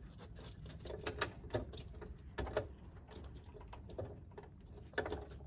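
Faint scattered clicks and scrapes of a tray cable harness and its plastic plug being handled and pushed into the connector on a metal vending-machine tray rail.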